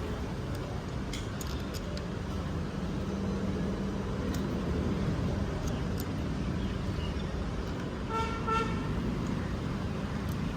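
Steady traffic rumble with a vehicle horn honking once, briefly, about eight seconds in, and a few light clicks scattered through.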